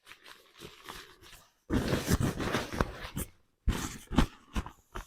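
Rustling and bumping of camping kit being shoved back into a bag, in irregular bursts with a few sharp knocks.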